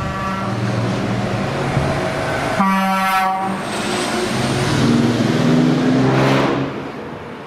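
Heavy trucks' diesel engines running loudly through open exhaust pipes, with a single blast of a truck air horn, about a second long, near the middle.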